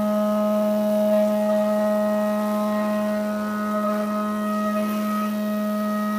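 Haas VF4SS CNC vertical machining centre roughing aluminium with a 5/8-inch three-flute carbide end mill: a loud, steady whine of several fixed pitches from the cutter at full depth.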